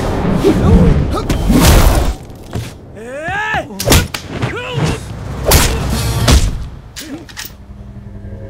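Action-film sound mix: a string of loud, sudden impacts, with shouting voices that rise and fall in pitch between them in the middle. Near the end it settles into a low, steady drone.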